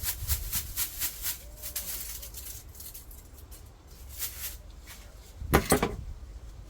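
Rustling and crackling from something being handled: a run of short, dry brushing noises that thin out partway through, then one louder rustle about five and a half seconds in.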